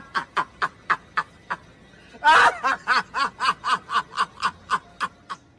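A man laughing hard in short breathy pulses, about four a second, with one longer, louder burst of laughter a little over two seconds in.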